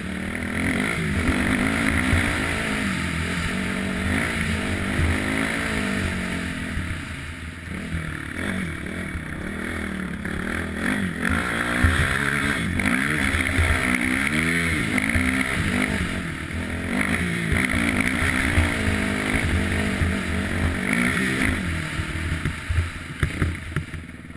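Quad bike (ATV) engine running as it is ridden over snow, its pitch rising and falling with the throttle.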